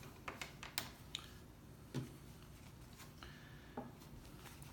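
Faint, scattered small clicks and taps of an Apple Watch being handled as its strap is pulled off.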